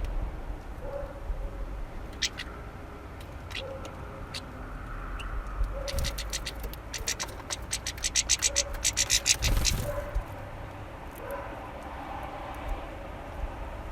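Finches feeding at a bird feeder: sharp taps and clicks of beaks pecking at seeds and the feeder. The taps are scattered at first, then come in a quick run of about five a second from about the middle to two-thirds of the way through. A low rumble sits beneath.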